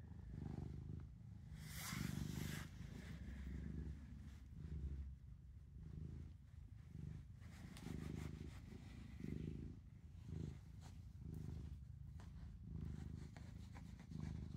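Black-and-white domestic cat purring while being stroked, a low rumble that swells and fades about once a second with its breathing: the cat is content and enjoying the petting. A brief rustle about two seconds in.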